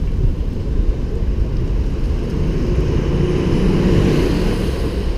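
Steady low rumble of wind buffeting the microphone of a camera on a moving bicycle, over town traffic. About halfway through, a heavier engine hum swells as the bike passes close by a lorry.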